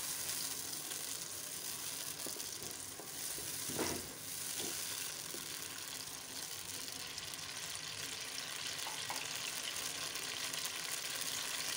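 Chopped tomatoes sizzling in hot oil in a karahi: a steady frying hiss, with a wooden spatula stirring them and one brief louder sound about four seconds in.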